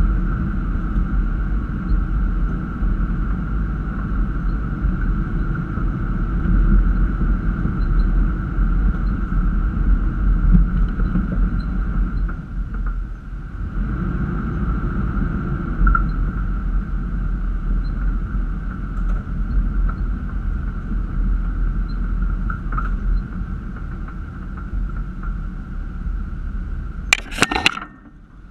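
Toyota Land Cruiser FZJ80's straight-six engine running at low speed on a rough dirt trail: a steady low rumble with a constant higher hum. A couple of sharp knocks come near the end, and then the sound drops off.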